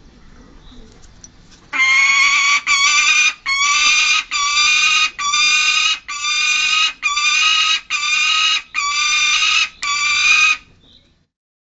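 Peregrine falcon calling: a run of about ten loud, drawn-out calls of even pitch, each just under a second long with short breaks between them, starting about two seconds in and stopping near the end.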